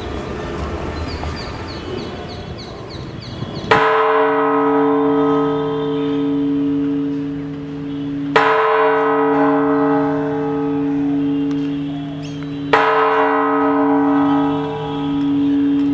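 A church bell tolling slowly, struck three times about four and a half seconds apart. Each stroke rings on with a low hum until the next. Before the first stroke there is a few seconds of noisy background.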